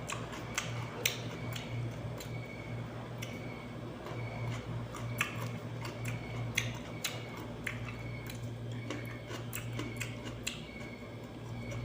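Chewing raw cucumber: scattered crisp clicks and wet crunches from the mouth, over a steady low hum.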